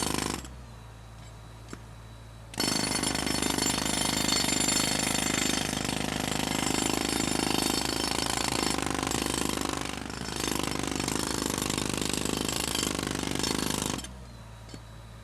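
Electric jackhammer (demolition hammer) hammering. A burst stops just under a second in, and hammering starts again about two and a half seconds in and runs without a break until about fourteen seconds. A steady low hum continues in the pauses.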